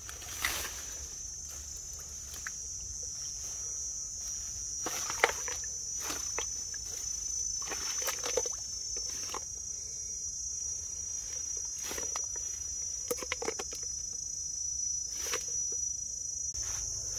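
A steady high-pitched drone of insects chirring, with scattered footsteps and rustles every few seconds.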